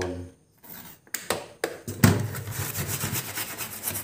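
A stiff-bristled brush scrubbing a wet, soapy amplifier circuit board to wash off corrosion: fast, rough scratching that starts about two seconds in, after a short pause broken by a couple of knocks.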